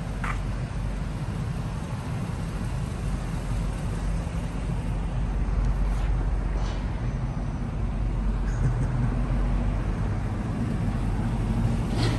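Hummer H2's V8 engine running steadily at low speed, a low even hum.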